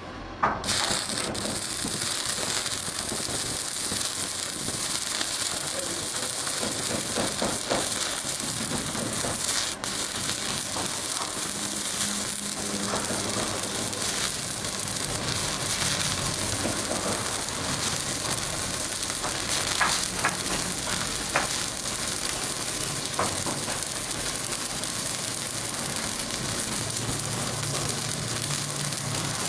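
Electric arc welding: the arc strikes suddenly about half a second in, then gives a steady frying sizzle with occasional sharp pops as the weld bead is run.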